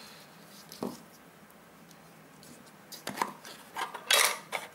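Hard plastic clicks and clacks from the case of a Victor VC97 multimeter as its battery and fuse compartment cover is pried loose by hand. A single light click comes about a second in. A quicker cluster of clacks follows from about three seconds, the loudest near the end.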